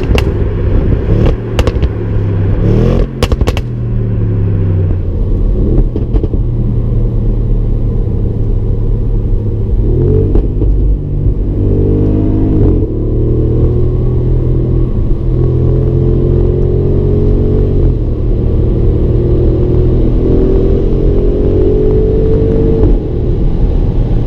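Audi RS6 Avant's 4.0-litre twin-turbo V8 running under load, its pitch rising, falling and stepping with several gear changes. A few sharp cracks sound in the first few seconds.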